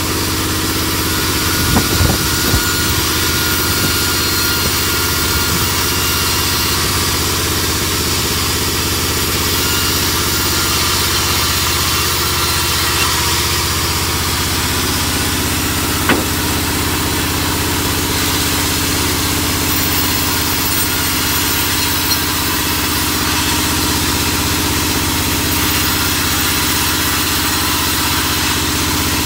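Large vertical band saw running steadily with a low, even machine drone, with a few sharp knocks about two seconds in and another about halfway.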